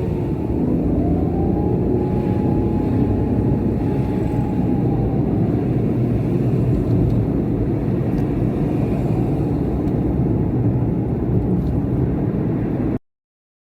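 Emergency vehicle siren wailing, slowly rising and falling in pitch, over steady road and engine rumble picked up by a car's dashcam. The sound cuts off suddenly near the end.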